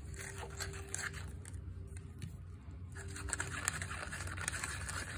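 Spoon stirring and scraping in a container, mixing a slime activator of washing powder, fabric softener and water: a run of small clicks and scrapes that gets busier about three seconds in.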